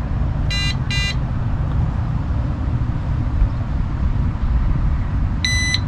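TireLinc TPMS alert indicator beeping: two short beeps about half a second apart, then near the end a slightly longer beep, its buzzer confirming that it has paired with the repeater. A steady low rumble runs underneath.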